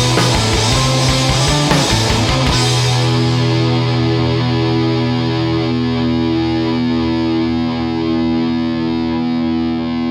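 Loud rock music with distorted electric guitars. About two and a half seconds in, the drum hits stop and a distorted guitar chord is left sustaining and ringing out.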